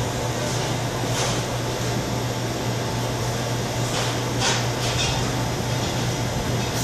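A steady low mechanical hum under an even rushing noise, unchanging throughout.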